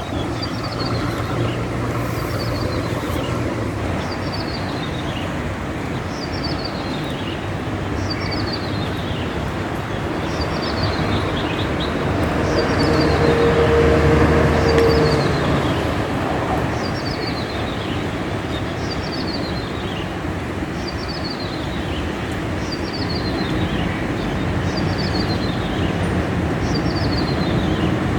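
A small songbird known in Indonesia as ciblek sawah or klik-klik calling over and over, each call a quick run of notes falling in pitch, about every second and a half, heard from far off. Steady wind noise runs beneath it, and a low rumble swells around the middle.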